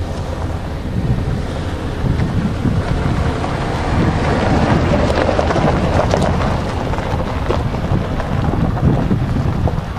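Wind buffeting the microphone over the low rumble of a BNSF double-stack freight train rolling past, swelling a little around the middle.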